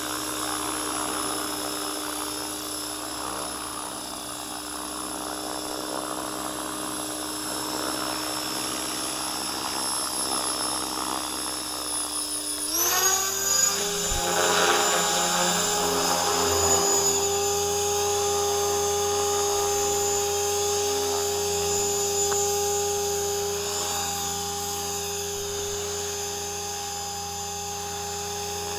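T-Rex 500 RC helicopter's motor and rotor running with a steady whine; about 13 seconds in the pitch jumps sharply up as the rotor speeds up, and it then holds steady at the higher pitch.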